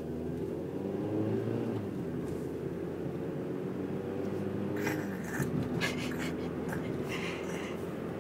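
Car interior noise: a steady low drone from the moving car, with a few short noises about five to seven seconds in.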